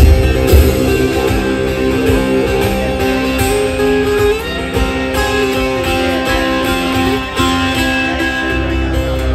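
Twelve-string acoustic guitar strummed and picked in a live solo performance, its chords ringing steadily with a change of chord about four seconds in.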